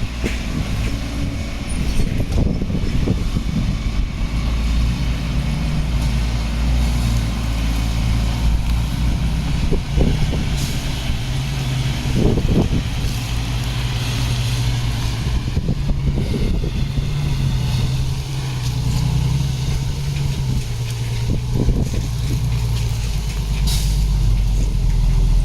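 Heavy diesel engine of earthmoving machinery running steadily, its pitch rising and falling a little with the load. A few short clunks, and a brief hiss near the end.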